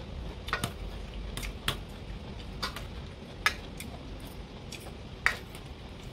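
Metal spoon and fork clinking and scraping against a stainless steel serving bowl and a plate while food is scooped, as a handful of short, sharp, irregular clinks.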